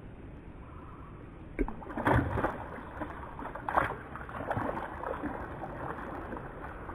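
A hooked fish splashing and thrashing at the water's surface as it is reeled in close to the bank, with a burst of loud splashes about two seconds in, another near four seconds, and smaller splashes after.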